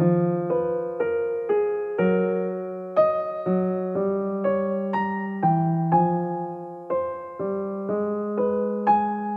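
Background music on piano: a slow, gentle melody with a new note struck about every half second, each note fading before the next.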